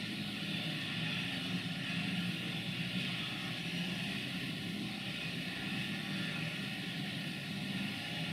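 A steady, low drone of distant vehicles under an even hiss, holding level without rising or fading.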